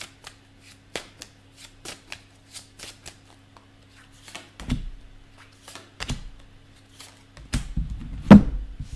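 A tarot deck being shuffled by hand: a run of light, irregular card clicks and flicks. Duller knocks come at about five and six seconds in, and a cluster near the end as the cards meet the table, the loudest of them just before the end. A faint steady hum sits underneath.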